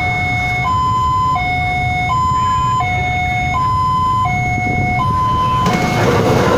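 Railway level-crossing warning alarm sounding a two-tone signal, switching between a higher and a lower tone about every 0.7 seconds. Near the end, the noise of a CC206 diesel-electric locomotive arriving at the crossing swells in under the alarm.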